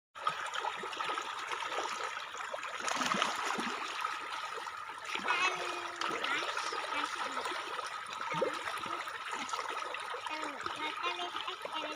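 Water trickling and splashing, over a steady high whine, with brief chirps about five seconds in.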